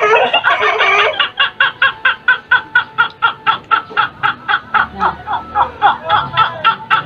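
Human laughter: one long, fast run of short, high-pitched bursts, about five a second, starting about a second in.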